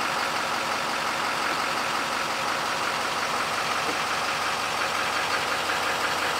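Engine of a medium-duty pickup truck idling steadily.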